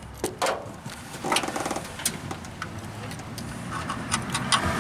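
Hands fitting a rubber vacuum hose and clamp onto a PCV valve: a series of scattered sharp clicks and knocks, with a short scraping rub about a second in.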